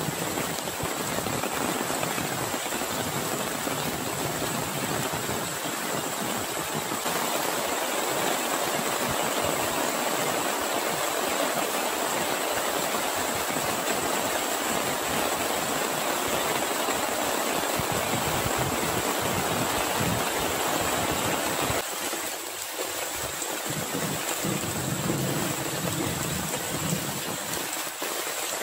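Heavy rain pouring down steadily, falling on grass and on standing floodwater.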